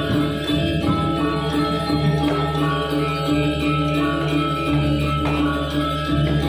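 Balinese gamelan playing: bronze metallophones ringing in many layered, sustained tones.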